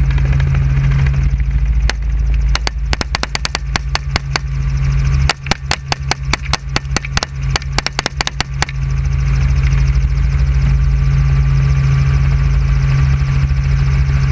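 Helicopter engine and rotor drone, with rapid rifle shots fired from the helicopter in quick runs, heaviest between about five and nine seconds in, at several shots a second.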